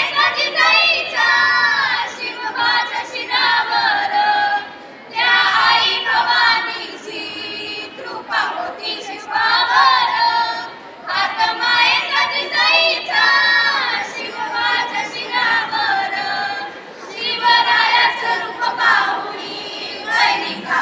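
A group of schoolchildren singing together without accompaniment, in phrases separated by short pauses.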